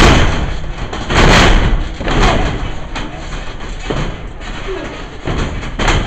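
Wrestlers' bodies hitting the ring corner: a loud slam right at the start, then several smaller thuds and knocks against the turnbuckle, ropes and ring.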